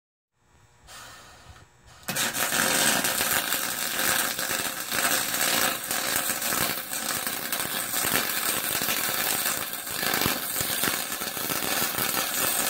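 Aluminum being MIG welded with a pistol-grip wire-feed gun: a steady crackling, sizzling arc that strikes up about two seconds in, after a fainter brief burst, and runs on without a break.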